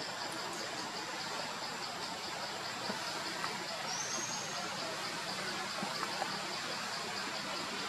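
Steady outdoor forest background hiss with a fast, even, high-pitched pulsing chirr and a thin steady high tone, a brief high rising whistle about four seconds in, and a few faint soft clicks.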